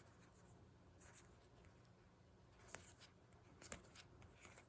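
Faint handling sounds of baseball cards and a plastic clamshell card box: light rustles and a few small clicks, the clearest around three and a half seconds in.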